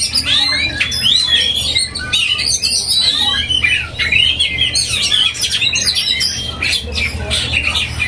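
Several caged oriental magpie-robins (black-breasted kacer) singing at once in full, constant song: a dense, unbroken jumble of varied whistles and chirps.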